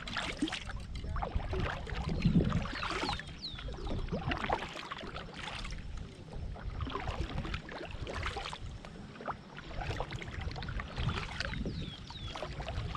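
Double-bladed kayak paddle dipping into river water stroke after stroke beside a small sit-on-top kayak, with splashes and water dripping off the blades.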